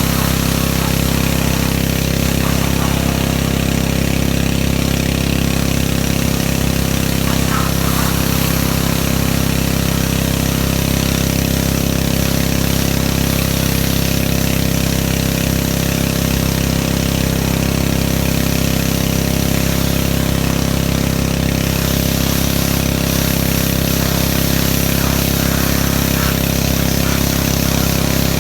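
Pressure washer running steadily: an unchanging motor drone with a constant hiss over it.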